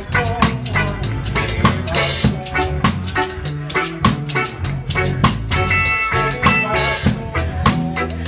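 Live reggae band playing, with the drum kit up close: snare and kick drum on a steady beat over low bass notes and keyboard chords. A cymbal crash comes about two seconds in and another later on.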